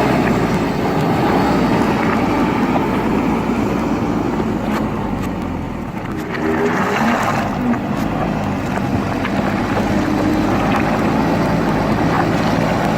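JCB backhoe loader's diesel engine running steadily under work. The note dips about halfway through and then picks up again, with a few light knocks scattered through.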